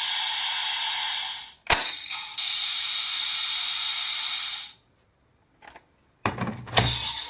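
Kamen Rider Build DX Rabbit Tank Sparkling toy: a steady sound from its small speaker cuts out, a sharp click sounds, and the sound runs on for a few more seconds before stopping. Near the end come several clicks and clunks of the plastic toy being worked.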